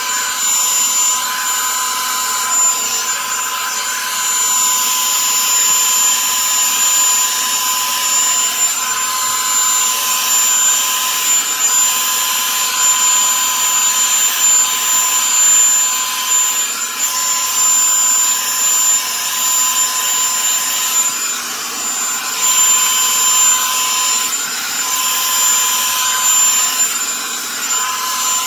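Revlon One-Step hair dryer brush running: a steady blower hiss with a high motor whine.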